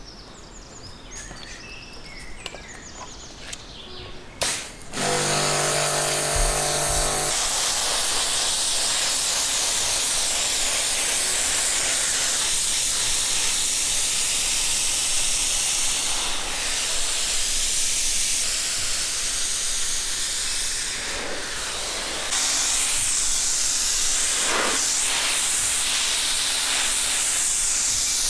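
Pressure washer spraying a whole salmon. After a click about four seconds in, the motor hums as it starts. A steady, loud hiss of the high-pressure jet follows, easing off briefly near twenty seconds in before resuming.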